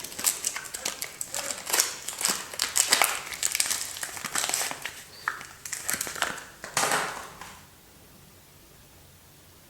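Soap packaging crinkling and rustling as a bar of soap is unwrapped by hand: a quick, irregular run of crackles that stops about two seconds before the end.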